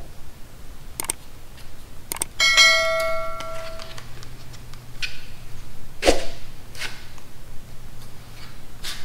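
Subscribe-button sound effect: two quick clicks, then a bell chime that rings for about a second and a half before fading. Later comes a single knock from handling tools on the bike, and another near the end.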